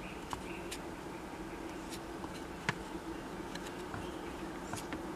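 Rubber timing belt handled and turned in the hand, giving scattered faint clicks and one sharper tick about two and a half seconds in, over a steady low hum.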